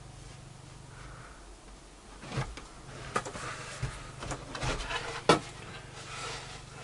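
Plywood panels being handled on a wooden workbench: a series of wooden knocks and scraping, the loudest knock about five seconds in, as a board is picked up and moved.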